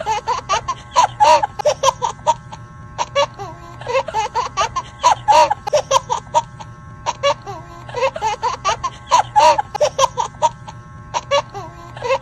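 Looped laughter sound effect, a giggling laugh repeating about every four seconds over background music.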